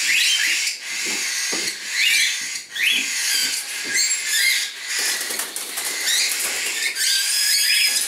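Young hand-reared cockatiels calling: a continuous chorus of high, raspy squawks and chirps from several birds at once, overlapping.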